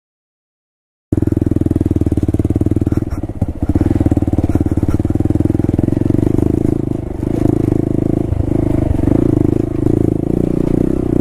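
A second of silence, then a Honda Grom's 125cc single-cylinder four-stroke engine running steadily as the bike is ridden along a dirt trail. The engine note dips briefly a few times about two-thirds of the way through as the throttle eases.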